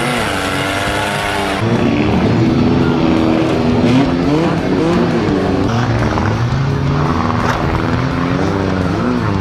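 Several four-cylinder compact demolition-derby cars' engines revving up and down together, with tyres squealing as the cars push and spin against each other. The sound changes abruptly about one and a half seconds in.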